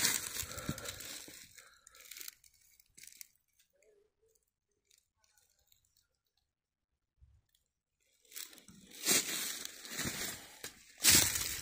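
Footsteps crunching through dry leaf litter, in irregular rustling steps. They stop for several seconds in the middle, then start again.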